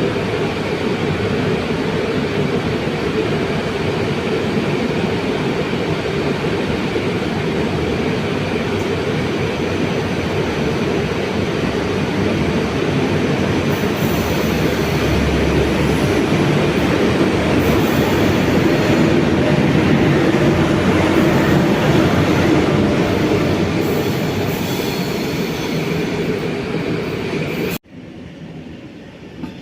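A train running past at close range with a steady, loud rolling noise of wheels on rails. High-pitched wheel squeal comes and goes through the middle, and the noise cuts off suddenly near the end.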